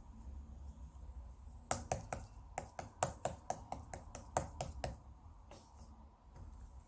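Cream-cheese slime being pressed and poked by hand, giving a quick run of sharp popping clicks for about three seconds, over a low rumble of passing traffic.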